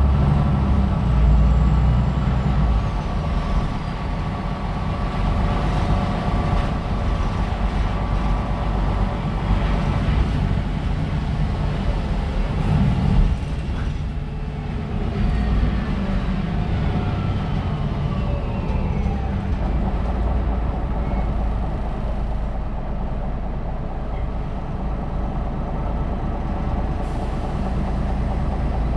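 MAN NL313 city bus running under way, with a steady low diesel rumble. About halfway through, a whine falls in pitch as the bus slows.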